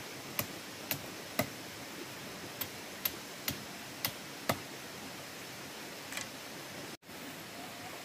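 Sharp clicks of thin bamboo strips being handled and worked, about two a second for the first four and a half seconds, over a steady background hiss.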